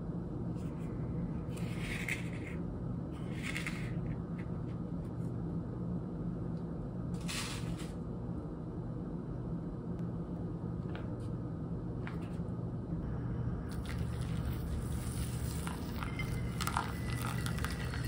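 A few short scrapes and clinks of coffee gear being handled on a stone counter. About fourteen seconds in, hot water starts pouring from a gooseneck kettle onto ground coffee in a paper filter, over a steady low hum.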